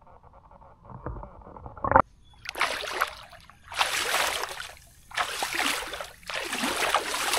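Pond water splashed hard by a hand sweeping through it, in four rushing splashes roughly a second apart. These follow a low rumble and a sharp click about two seconds in.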